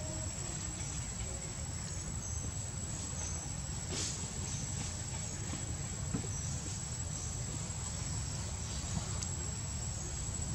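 Outdoor ambience of insects trilling: a steady high whine with short high chirps scattered through it, over a constant low rumble. A few faint clicks come through, the clearest about four seconds in.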